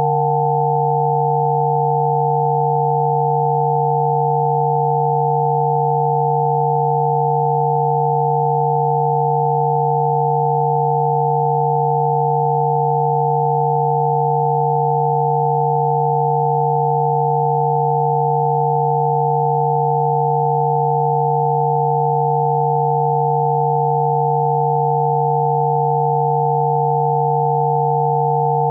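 Spooky2 Rife frequency tones: several steady electronic sine tones sounding together, one low and a few higher ones, held at a constant pitch and level without any change.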